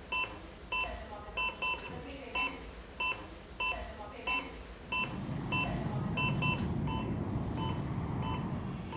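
Operating-room patient monitor beeping about once every half-second or so, now and then two beeps close together: the pulse beep that tracks the patient's heartbeat. About halfway through, a low rumble swells up beneath the beeps.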